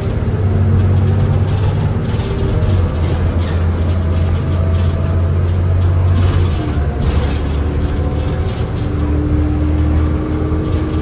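Inside a 2005 New Flyer C40LF bus under way: its Cummins Westport C Gas Plus natural-gas engine and Allison B400R transmission running with a strong, steady low drone. The drone shifts about six and a half seconds in, and a steady higher whine joins it in the second half.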